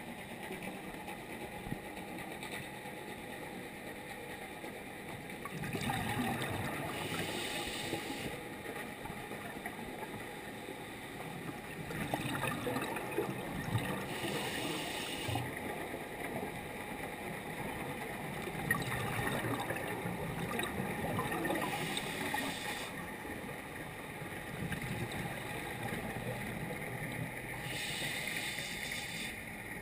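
Scuba regulator breathing heard underwater: four gurgling bursts of exhaled bubbles, each two to three seconds long and about six seconds apart, over a steady muffled underwater hiss.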